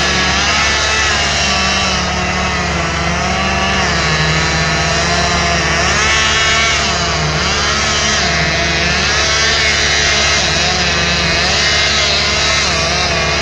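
Two-stroke chainsaw engines running loud and continuously, their pitch rising and dipping as they are revved.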